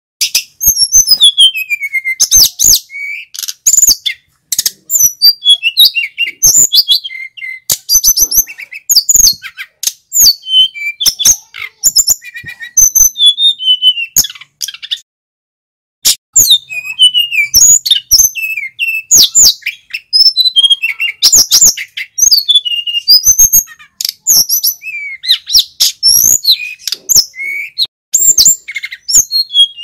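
Male sikatan gunung (mountain flycatcher) singing loudly: a fast, unbroken run of high whistles, chirps and trills that sweep up and down, with a brief pause about halfway through.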